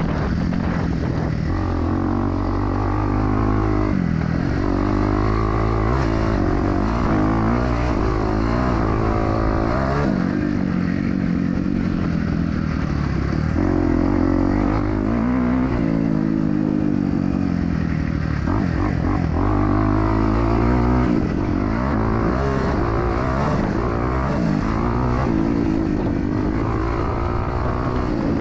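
Motocross dirt bike engine racing around the track, revving up and falling back again and again as the throttle opens and closes.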